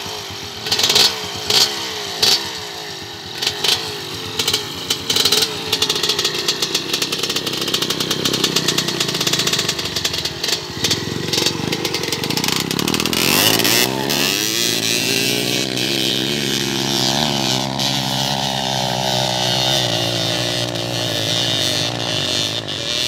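Dirt bike engines running and revving, with several short loud blips of throttle in the first few seconds. About 13 seconds in an engine revs up in a rising pitch and then holds a steady higher note under load.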